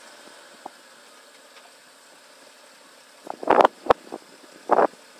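Jeep Cherokee XJ bogged in mud, its engine running at a low steady drone while the wheels spin and fling mud. Short bursts of splattering mud and knocks come a little past three seconds in and again near the end.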